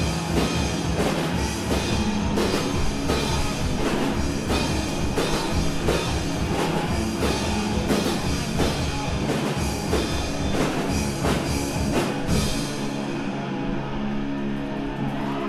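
Live rock band playing with drum kit, electric guitar and synthesizer. About 13 seconds in the drums stop, leaving held notes ringing.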